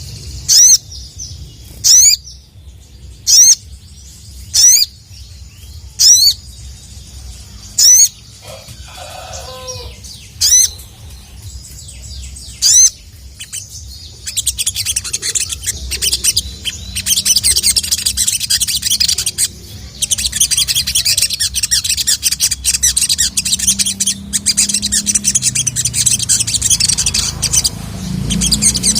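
Sogon (sogok ontong) sunbird calling. It gives about eight loud, sharp "cuit" notes a second or two apart, then from about halfway a fast, continuous high twittering song.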